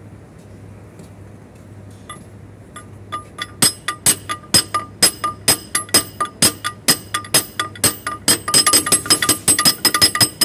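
Hammer blows on metal, sharp ringing clinks starting about three seconds in, at about two a second and quickening to about four a second near the end. The blows are struck on a tool at a truck's fan clutch hub to work the fan clutch loose.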